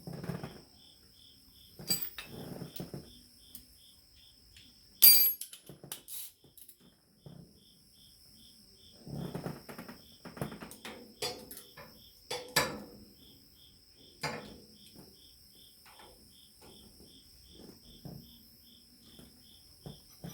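Scattered sharp metal clinks and clanks of hand tools and parts being handled, the loudest about five seconds in and a cluster near the middle, over a cricket chirping steadily about two or three times a second.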